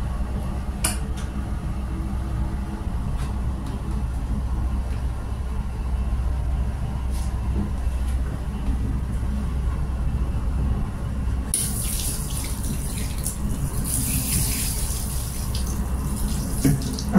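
Steady low rumble of a GWR Class 800 Intercity Express Train running, heard from inside the coach. About two-thirds of the way through, a louder high rushing hiss joins in and lasts almost to the end.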